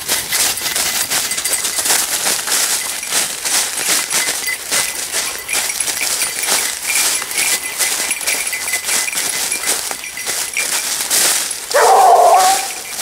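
Continual rustling and crackling of dry leaf litter and brush underfoot, then near the end a Basset bleu de Gascogne hound gives one loud, drawn-out bay lasting about a second.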